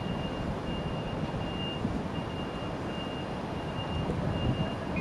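Railway station platform ambience: a steady low rumble with a high electronic beep repeating over and over, about once or twice a second.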